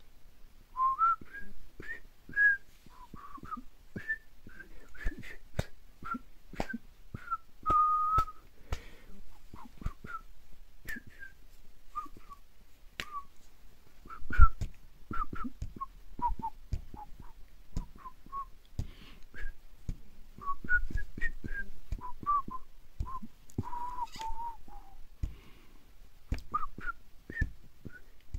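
A person whistling in short, choppy notes, with a few held a little longer, and sharp clicks and knocks scattered throughout. The loudest knock comes about halfway through.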